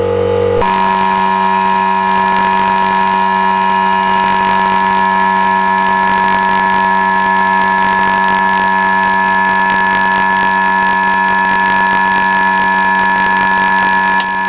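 Parkside air die grinder running on compressed air from its air compressor: a loud, steady mechanical whine and drone. Its pitch shifts abruptly about half a second in, then holds steady.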